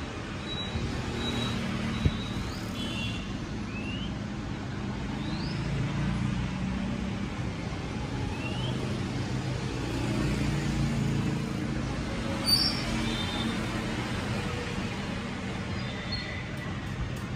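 Steady low rumble of road traffic in the background, with a few short high chirps, a sharp click about two seconds in and a brief louder knock near the middle.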